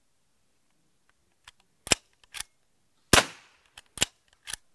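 A Henry Pump Action Octagon .22 rimfire rifle fires one shot about three seconds in, a sharp crack with a short ring-out. Several sharp clacks of the pump action being worked come before and after it.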